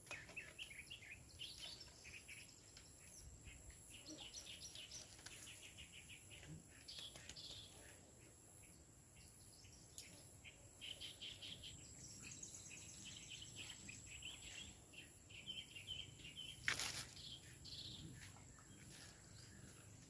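Faint outdoor ambience of small birds chirping over and over, with a steady thin high insect buzz underneath and one brief sharp knock about seventeen seconds in.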